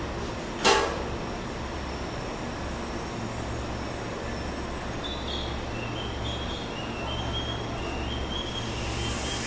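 JR-West 285 series sleeper electric train standing at the platform with a steady low hum. A single sharp clunk comes under a second in, and a hiss starts rising near the end.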